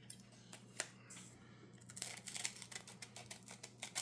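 Faint handling noise of a trading-card booster pack and its cards: scattered small clicks and crinkles, with a quick run of ticks about two seconds in.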